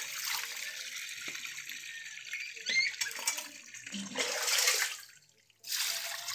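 Water poured from a plastic bowl splashing onto a heap of cooked corn kernels (nixtamal) on a wire-mesh screen as they are washed and rubbed by hand. The splashing comes unevenly and stops briefly about five seconds in.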